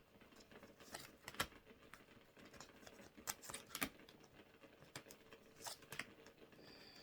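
Faint, irregular clicks and taps from tarot cards being handled.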